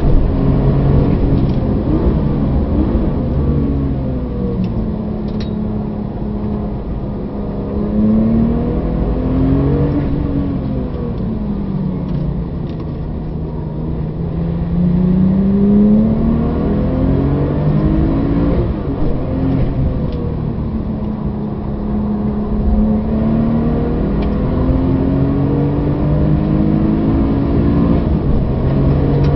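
Porsche 997 GT2 RS's twin-turbo 3.6-litre flat-six driven hard on track. The engine note falls as the car brakes for a slow corner about halfway through, then climbs again in several steps as it accelerates back up to speed.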